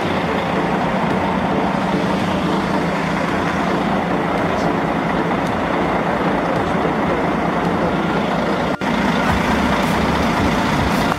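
Steady running noise of the diesel engines of parked tour coaches and lorries close by, with a brief dropout about nine seconds in.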